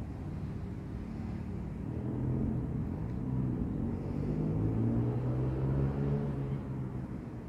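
A low engine hum that grows louder about two seconds in and eases off near the end, as of a motor vehicle passing.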